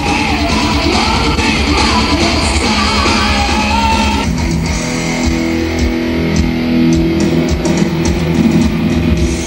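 Rock music with electric guitar, cutting off suddenly at the end.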